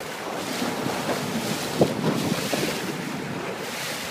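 Wind buffeting the microphone and water rushing and slapping past a moving boat on choppy river water, with a brief louder buffet a little under two seconds in.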